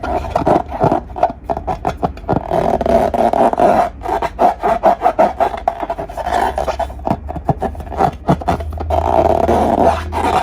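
Slime being squeezed and worked by hand: a dense, continuous run of quick sticky clicks and crackles, with a steady low hum underneath.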